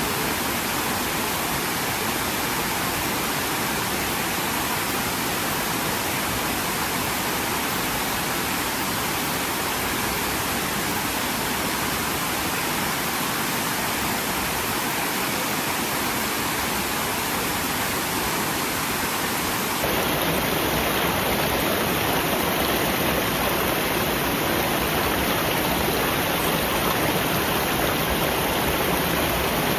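Steady rush of falling water from a waterfall. About two-thirds of the way through it switches abruptly to a slightly louder, fuller rush.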